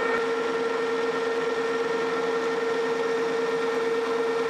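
Metal lathe turning a steel pin, the cutting tool feeding along it on a roughing pass that takes 100 thousandths off the diameter: a steady machine hum with a constant whine and the hiss of the cut. A set of higher ringing tones drops out just after the start.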